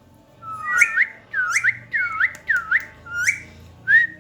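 Pet parrot whistling a quick run of about seven short swooping notes, each dipping then rising in pitch.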